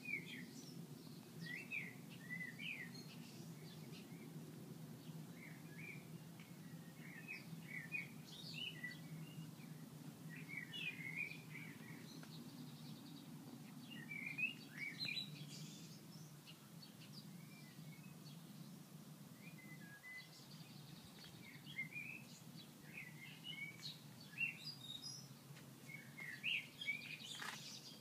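Garden songbirds chirping and twittering in short clustered phrases again and again, over a steady low background hum.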